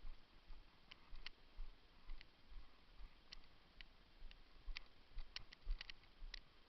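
Taurus PT92 replica airsoft pistol giving about a dozen faint, sharp clicks at an uneven pace during target shooting, several in quick succession near the end.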